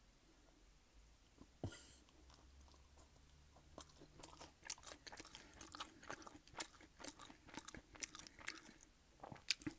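Close-miked chewing of crunchy food: one crunch about a second and a half in, then from about four seconds a steady run of sharp, crisp crunches and mouth clicks.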